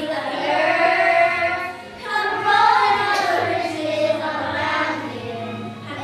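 High voices singing a song in long held notes that slide up and down in pitch, with a brief dip about two seconds in, over a faint steady low hum.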